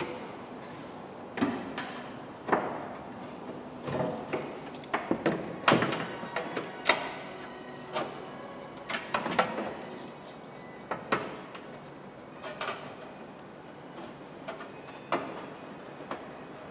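Irregular knocks, clunks and light scrapes of a loose sheet-steel replacement rear wing section being handled and pressed against a car's bodywork during a test fit. The knocks are densest in the middle, and a few ring briefly.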